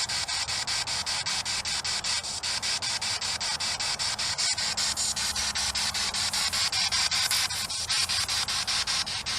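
Ghost-hunting spirit box, a radio that sweeps rapidly through stations, hissing static chopped into a fast, even pulse of about seven or eight beats a second.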